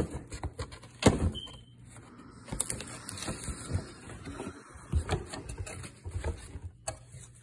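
A cardboard shipping box being opened by gloved hands: flaps scraping and rustling as they are pulled apart, with several sharp knocks and clicks of the cardboard.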